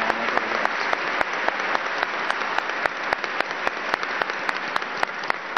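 Audience applauding, with a dense patter of clapping and single loud claps standing out at an even rhythm of several a second.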